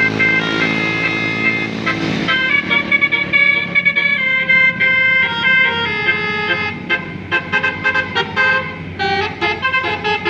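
A tour bus's 'basuri' telolet musical air horn playing a melody, held notes at first and quicker short notes later. The bus's engine rumbles under it for the first two seconds or so.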